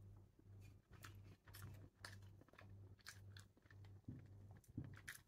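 Faint close-up chewing of sweet tamarind, with small sharp mouth clicks scattered through and two soft knocks near the end.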